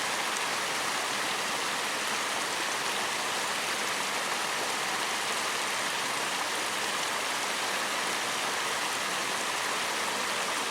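Steady rushing of flowing stream water, an even unbroken noise.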